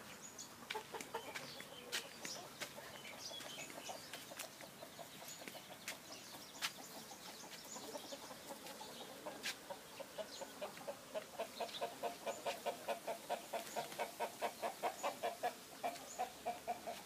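A chicken clucking: scattered short calls at first, then from about the middle a steady run of short clucks, about three a second, that grows louder. A few sharp clicks sound in the first half.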